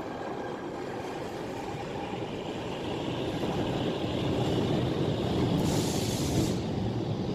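Commuter train rumbling on the tracks, growing louder, with a short hiss of air about six seconds in.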